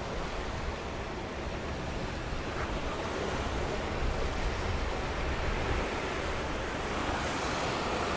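Mediterranean sea surf washing onto the shore as a steady rush, with wind rumbling on the microphone.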